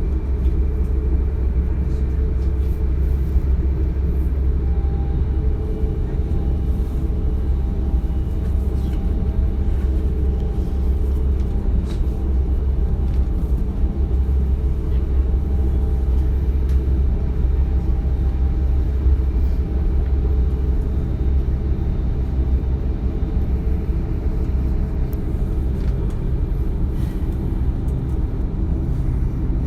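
Interior running noise of a DB Class 425 electric multiple unit in motion: a steady, loud low rumble from the running gear and wheels on the track, with a faint thin whine over it from about five seconds in.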